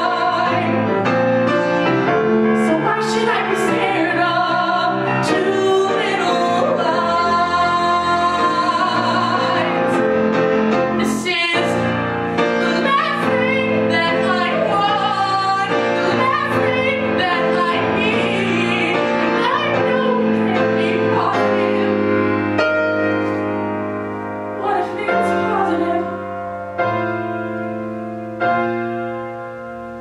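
A solo female voice singing a pop song over piano accompaniment. About 22 seconds in the voice drops out and the piano carries on alone, more quietly, with spaced chords.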